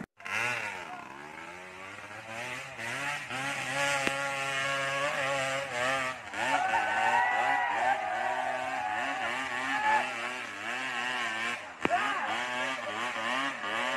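Motor vehicle engines running and revving, their pitch rising and falling again and again, with more than one engine heard at once.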